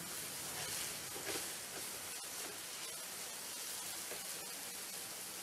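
Yellow noodles sizzling softly in a wok with a little prawn stock, stirred with a silicone spatula.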